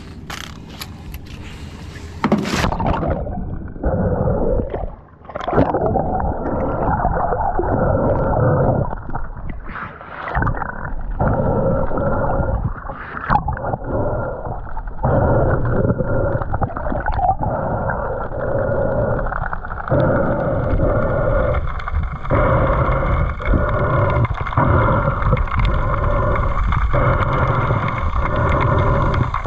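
Muffled underwater sound from a camera in a waterproof housing: water rushing past, with irregular knocks and handling bumps, and everything high-pitched cut off after the first couple of seconds as the camera goes under.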